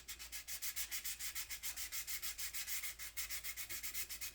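Wet sandpaper rubbed quickly back and forth over dried filler putty on a plastic model car body, about seven short, even strokes a second.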